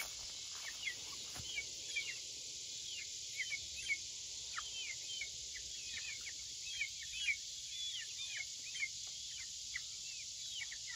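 Young chickens peeping: many short, falling chirps, several a second, over a steady insect chorus.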